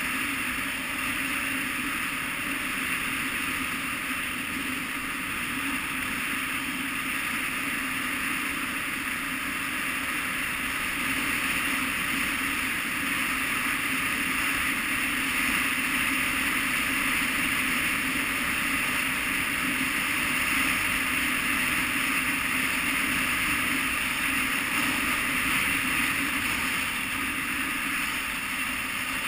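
KTM 990 Adventure's V-twin engine running steadily at cruising speed on a dirt track, mixed with wind rushing past the camera; it gets slightly louder partway through.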